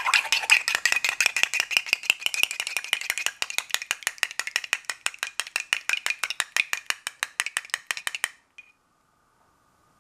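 A spoon beating fast inside a plastic yogurt bottle to loosen the yogurt: an even clicking rattle, about seven clicks a second, that stops suddenly near the end.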